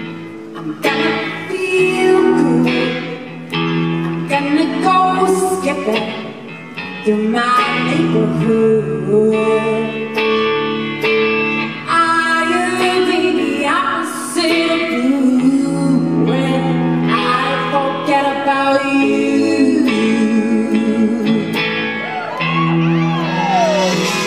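Live song performance: a woman singing lead over electric guitar.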